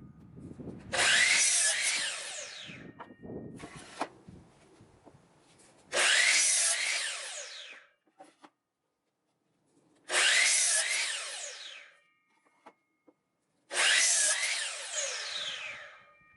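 A power tool working wood in four bursts of about two seconds each, a few seconds apart, its pitch sliding during each burst.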